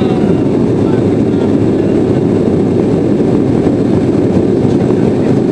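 Steady low roar inside the cabin of a Sukhoi Superjet 100 climbing after take-off: its two PowerJet SaM146 turbofans and the rush of air over the fuselage, unchanging throughout.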